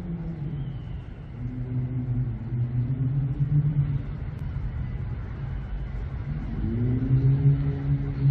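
Motor vehicle engines running and accelerating past in city traffic, several passes one after another, with one rising in pitch near the end.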